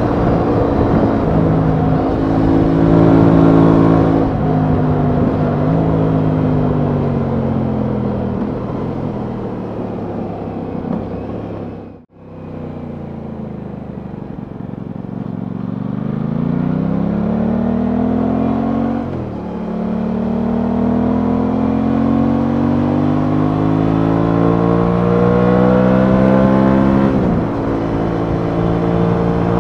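Aprilia Tuono 660's parallel-twin engine under way: it revs up and shifts up a gear early on, then the revs fall steadily as the bike slows. After a momentary break in the sound it pulls away again, revving up through the gears with two more upshifts, the pitch dropping at each shift.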